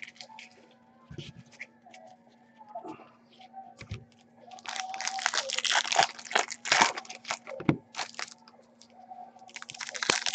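A Topps Platinum football card pack wrapper being torn open and crinkled by hand. It is quiet at first with a few light clicks, then there is a few seconds of dense crackling from about halfway in, and more again near the end. A faint steady hum runs underneath.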